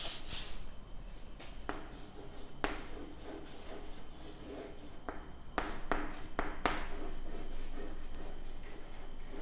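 Chalk writing on a blackboard: light taps and short scratches of chalk strokes, most of them bunched together about five to seven seconds in.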